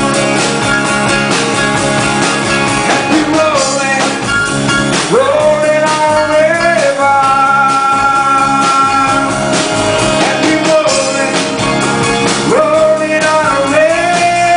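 Live band playing rock and roll: strummed acoustic guitars and a synthesizer keyboard under a lead singer, whose long held notes slide up into pitch.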